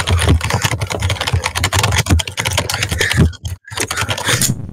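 Fast typing on a computer keyboard picked up right at the microphone: a dense clatter of key clicks with heavy low thuds, breaking off briefly about three and a half seconds in.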